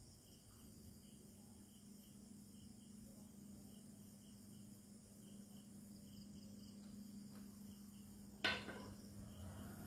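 Crickets chirping in an even pulsing rhythm over a faint steady low hum. About eight and a half seconds in comes a single sharp knock, the loudest sound.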